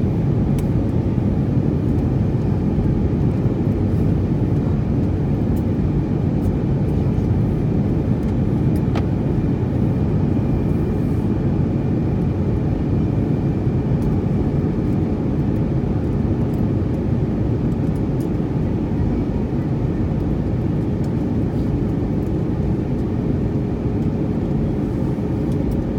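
Steady low drone inside an airliner cabin in flight: engine and airflow noise, with a faint steady hum on top.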